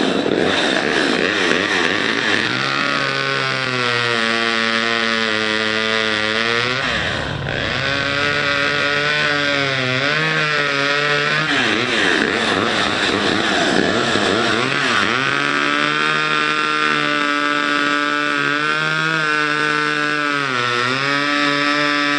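Homelite XL two-stroke chainsaw running at high revs while cutting wood, its engine note dipping and recovering several times as the chain loads up in the cut.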